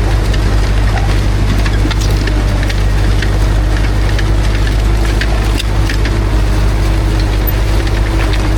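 Ursus C-360 tractor's four-cylinder diesel engine running steadily, with scattered light clicks and rattles over the engine sound.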